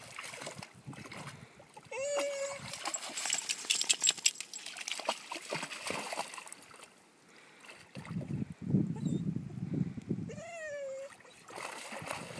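A dog wading and splashing through shallow water, loudest about three to five seconds in, with two short high whines, the second rising and falling.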